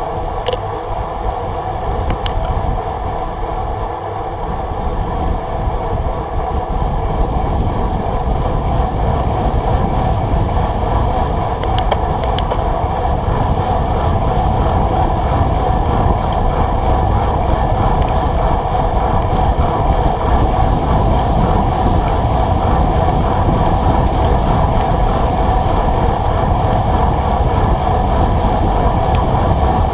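Wind buffeting the microphone of a bike-mounted camera, with road bike tyres humming on asphalt at racing speed. It grows louder over the first several seconds, then holds steady.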